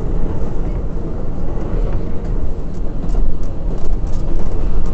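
R188 subway car in motion, heard from inside the car: a steady, loud rumble of wheels on rail and running gear, with faint scattered clicks.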